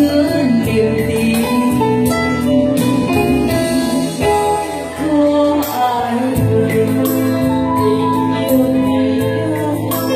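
Two women singing a Vietnamese song together into microphones, with live keyboard and acoustic guitar accompaniment.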